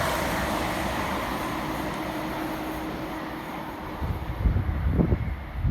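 Two coupled Class 350 electric multiple units passing through at speed, their rushing noise fading as they draw away. From about four seconds in, irregular low gusty buffeting sets in.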